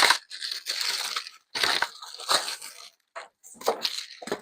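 Packing material being torn off and crumpled by hand, in irregular rustling, crinkling bursts with short pauses.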